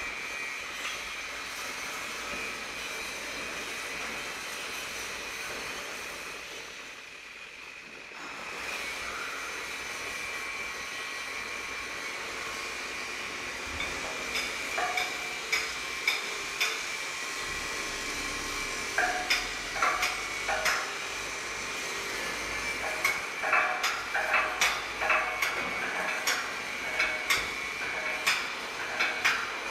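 Hydraulic press-type die spotting machine running with a steady high whine while its upper platen lifts and its table moves out. From about halfway, a run of sharp metallic knocks and clanks comes in and grows thicker toward the end.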